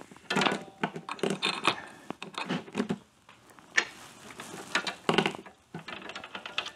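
Metal roller drive chain clinking and rattling in short, irregular bursts as it is handled and fitted over the engine and rear-wheel sprockets of a motorcycle.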